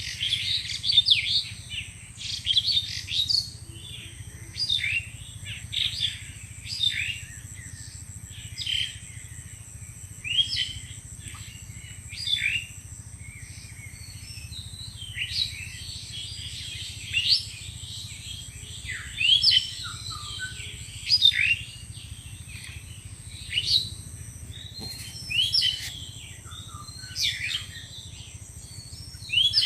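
Birds chirping: short, sharp calls that come every second or two, over a steady high whine and a low hum.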